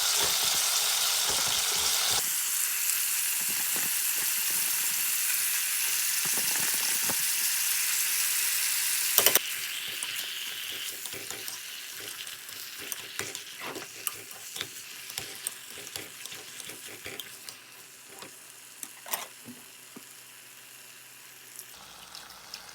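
Food frying in a hot pan: a loud, steady sizzle that starts abruptly, with a sharp click about nine seconds in, then gradually dies down into scattered crackles and pops.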